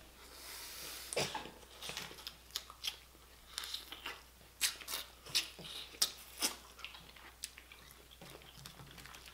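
Boiled crawfish being twisted apart and eaten close to the microphone: the shells crack and crackle in many short snaps, with sucking at the head and chewing.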